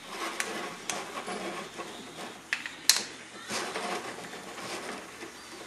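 Light scraping and a handful of sharp metal clicks as a hex key works the pad adjusters of an MCP brake caliper half held in the hands, the loudest click about three seconds in.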